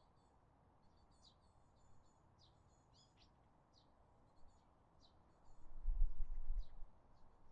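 Small birds chirping: short high chirps repeated about once or twice a second. About five and a half seconds in, a low rumble rises for over a second, louder than the birds.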